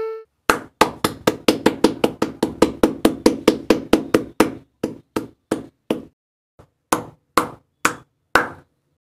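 A run of sharp taps, about five a second at first, then slowing and spacing out, stopping shortly before the end.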